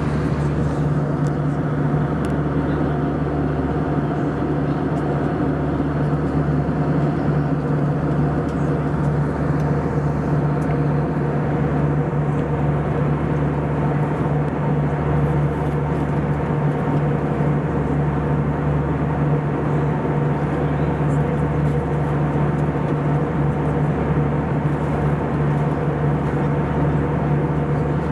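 Steady cabin drone of an Airbus A320-214 in flight: constant engine hum from its CFM56 turbofans with a low steady tone and airflow rush, unchanging throughout.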